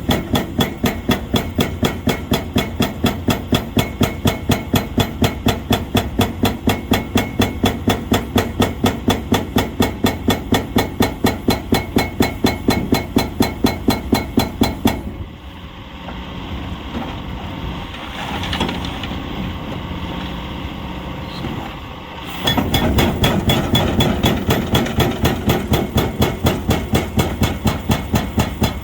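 Hydraulic breaker on an excavator hammering in a fast, even rhythm of about four blows a second. It stops for several seconds past the middle, leaving the machine's engine running, then starts hammering again.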